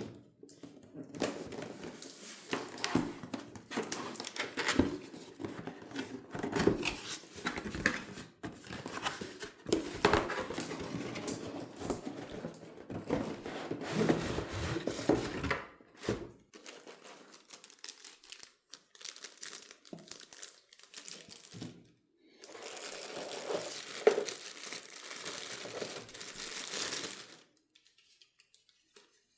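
Plastic packaging handled by hand, crinkling and tearing, in two long stretches: the first runs to about halfway, the second goes from about three quarters of the way in to just before the end.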